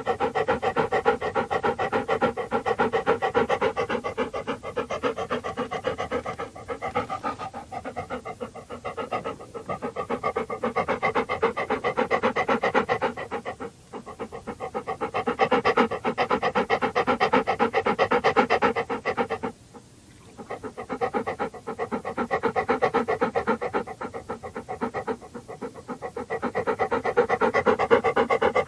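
A dog panting rapidly and steadily, with two brief pauses.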